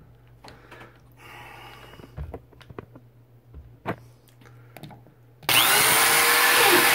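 Faint handling clicks and taps, then about five and a half seconds in a power drill starts with a rising whine and runs loud and steady, boring a hole in drywall with a quarter-inch bit.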